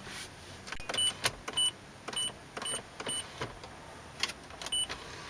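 Dashboard navigation unit of a 2004 Mazda RX-8 beeping as its buttons are pressed: six short, high, even beeps, each with a plastic button click, and a few more clicks between them.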